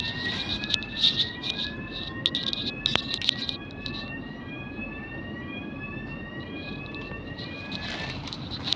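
GAL SEe200 electric bus making its faint howling noise: a pair of rising whines that sweep up, drop back and repeat a little faster than once a second, over a steady low running rumble. Light rattling clicks come and go, mostly in the first half.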